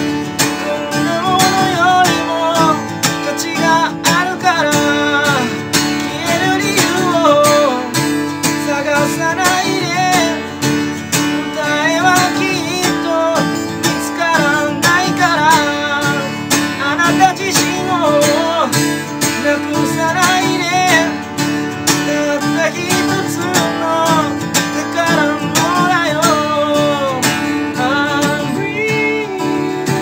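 A man singing a ballad in Japanese, accompanying himself on acoustic guitar.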